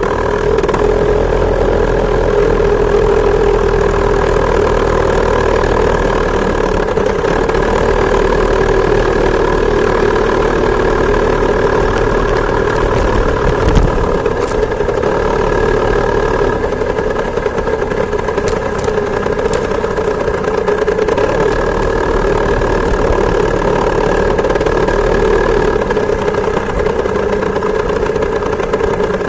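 Two-stroke chainsaw engine driving a homemade moped, running steadily at a fairly even speed. A single knock sounds about halfway through.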